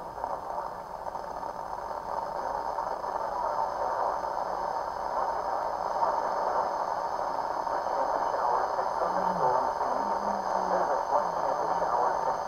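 Weather radio receiver hissing with static on a weak signal, with a faint voice surfacing through the noise in the last few seconds.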